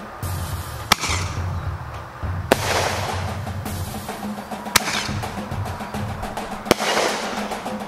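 Four sharp cracks about two seconds apart, each trailing off in a short hiss, over background music.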